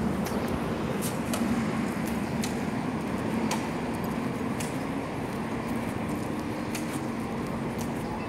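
Steady urban background noise: distant road traffic and a low steady hum, with scattered faint clicks.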